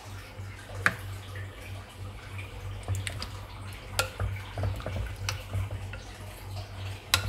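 A few sharp, scattered clinks and taps of kitchen utensils against cookware, over a steady low hum.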